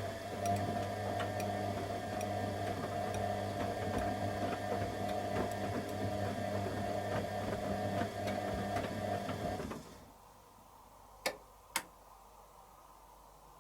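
Candy Aquamatic 100F washing machine's motor turning the drum during the heating stage of a 40°C wash: a steady hum with a light, regular ticking. It stops suddenly about ten seconds in, for the pause in the tumble, and two sharp clicks follow a second or two later.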